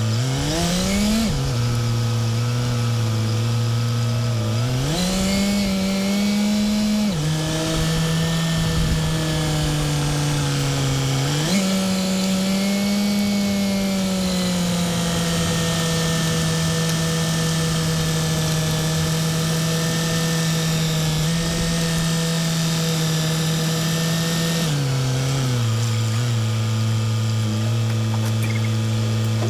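A motor running steadily with a low hum. Its pitch steps up and down several times, climbing in the first few seconds and settling back down near the end.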